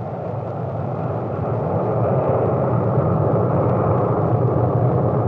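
Polaris missile's solid-fuel rocket motor firing as the missile climbs: a steady, noisy rumble that grows louder over the first two seconds, then holds.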